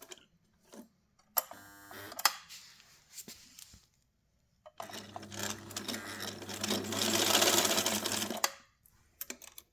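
Singer 99K sewing machine running on its electric motor, stitching through about eight layers of denim. A short burst comes about a second and a half in, then a longer run of about three and a half seconds that grows louder before it stops.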